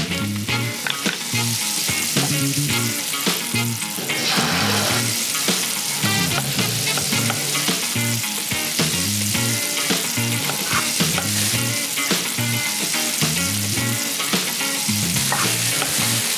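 Food frying in a hot pan: a steady, loud sizzle with stirring, under background music with a repeating bass line.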